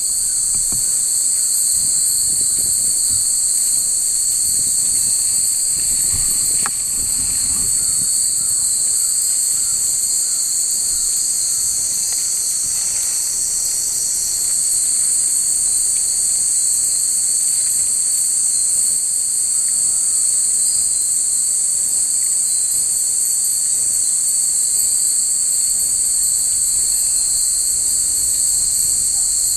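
A dense, steady chorus of summer insects: an unbroken high-pitched shrill drone.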